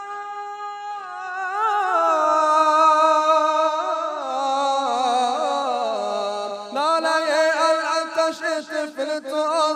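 A man's solo voice chanting a Persian Muharram mourning elegy (noha), drawing out one long ornamented phrase that slides slowly down in pitch. About seven seconds in he starts a new phrase higher, with quick wavering turns.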